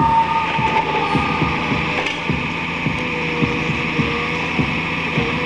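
Valmet forest harvester running at work: a steady engine and hydraulic hum with short low pulses repeating irregularly a few times a second.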